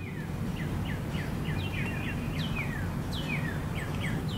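Outdoor birdsong: one or more birds give rapid, short chirps that sweep downward in pitch, several a second, over a steady low rumble of background noise.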